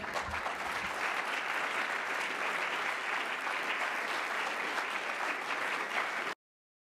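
Audience applauding steadily at the end of a lecture, stopping abruptly about six seconds in.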